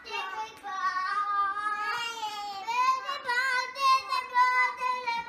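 A toddler singing a tune in long, high held notes.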